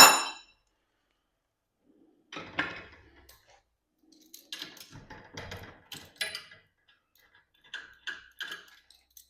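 A sharp metallic clank that rings briefly at the start, then scattered metal clicks and rattles from a garage door's torsion-spring hardware and steel winding bars as the spring is let down to no tension.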